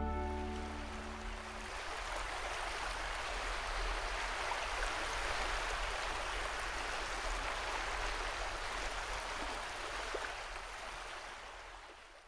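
A steady rush of sea water, waves washing, that fades out near the end.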